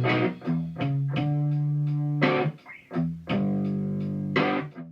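Electric guitar, a Gibson Les Paul, played through the Noise Therapy FX Insomnia distortion pedal: chords struck one after another, several left to ring for about a second, fading out near the end.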